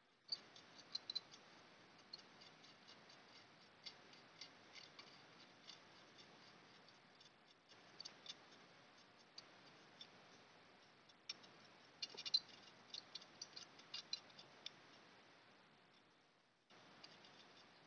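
Faint, scattered small clicks and scratches of a metal pick scraping a crust of salt and copper corrosion off a circuit board, with small surface-mount components breaking loose. The clicks bunch up about a second in and again from about twelve to fifteen seconds.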